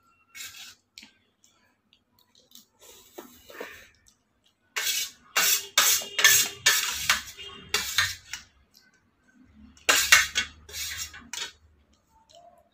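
Steel spoon scraping and clinking on a stainless steel plate, in quick strokes that come in two runs, about five seconds in and again about ten seconds in.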